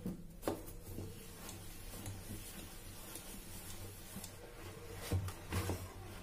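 Hand-cranked plastic dough maker being turned, its paddle churning flour and water into dough with a faint rubbing, scraping sound. A few louder knocks come about five seconds in.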